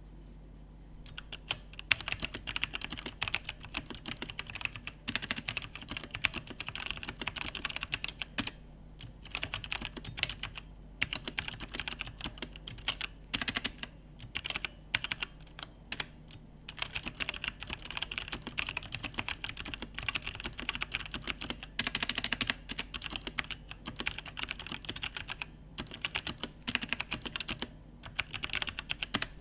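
Mechanical keyboard fitted with Outemu Brown switches, tactile and without a click, being typed on. It is a quick run of keystrokes that starts about a second in and pauses briefly a few times.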